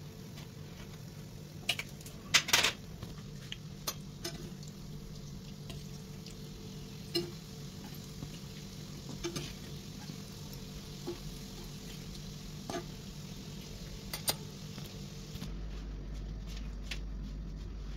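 Doughnuts sizzling in hot oil in a frying pan, with a metal fork clicking and scraping against the pan now and then as they are turned; the loudest clatter comes about two and a half seconds in. Near the end the sizzling stops and a low steady hum is left.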